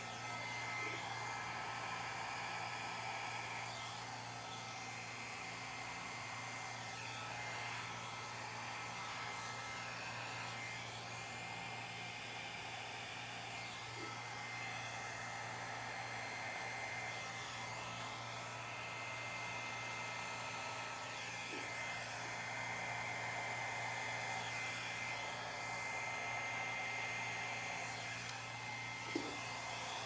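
Small handheld hair dryer running steadily, blowing fluid acrylic paint across a canvas: a steady rush of air with a thin high whine from the motor. A faint click near the end.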